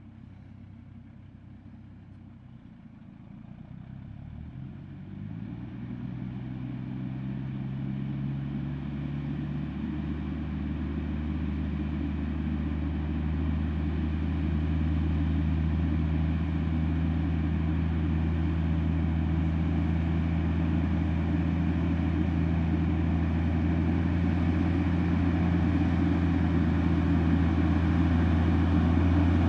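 A large engine running, its pitch climbing over the first several seconds and then holding steady while it grows gradually louder.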